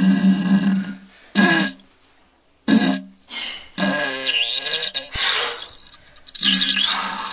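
A young man's strained grunts and groans as he strains on the toilet. They come as a string of about seven separate pushes, most under a second, with a longer wavering one in the middle.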